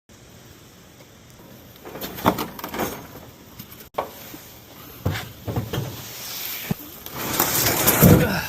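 Scattered knocks and clattering, with a louder scraping, rustling swell about seven seconds in that dies away near the end.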